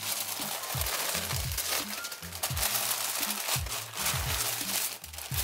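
Thin tissue paper crinkling and rustling as it is unfolded by hand, over background music with a steady bass beat.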